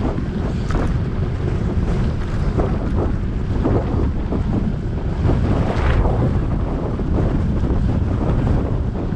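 Wind buffeting a GoPro Hero7 microphone while riding a bicycle, a loud steady low rumble. Frequent small knocks and rattles run through it.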